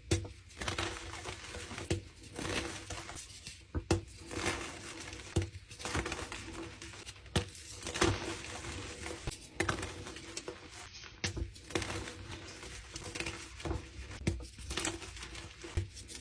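Blocks of dyed gym chalk being crushed: repeated sharp crunches at irregular intervals over softer, continuous crumbling.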